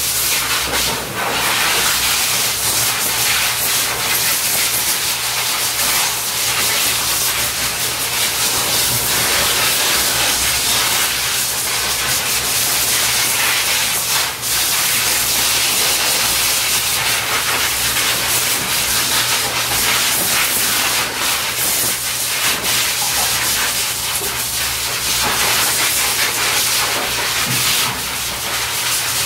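Dog grooming blower dryer running steadily, its hose blasting air over an American bully puppy's coat to dry it: a loud, even rushing hiss over a faint low motor hum.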